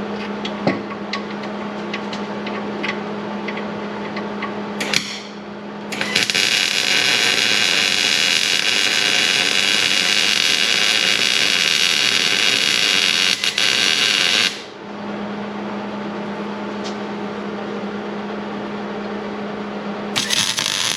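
Electric arc welding a repair cap onto a rusted truck frame: a loud, steady crackling hiss starts about six seconds in and cuts off after about eight seconds, then starts again near the end. Between the runs there is a low steady hum with a few scattered clicks.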